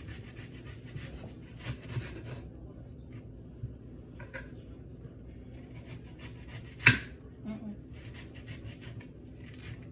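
Knife slicing a red onion thinly: runs of quick, crisp cuts, with one sharp knock about seven seconds in.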